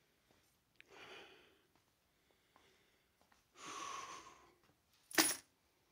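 A man's breath-like exhales and faint hissing, then one short, sharp knock about five seconds in.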